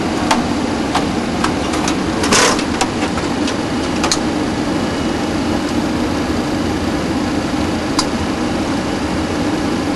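Steady hum and rush of air inside a parked Boeing 737NG cockpit, from its air conditioning and equipment fans. A few scattered clicks break in, with a louder short rustle about two and a half seconds in.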